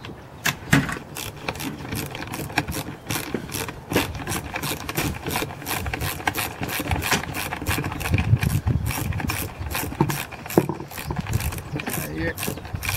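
Socket ratchet wrench clicking, about three clicks a second, as it is worked back and forth on a fastener on top of a chainsaw engine. A few harder knocks come from the tool and saw being handled.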